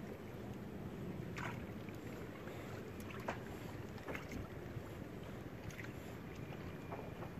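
Steady low river ambience of water and light wind around a floating fish-cage raft, with a few short, faint ticks at intervals.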